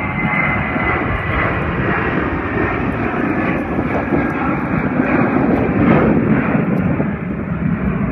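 Jet engines of a FedEx Boeing 767-300 running loud and steady, a dense roar that swells a little in the middle and eases near the end.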